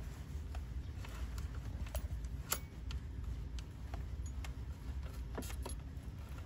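Small metallic clicks and taps, irregularly spaced, as pliers work a hose clamp off a hose at the high-pressure fuel pump. A steady low hum runs underneath.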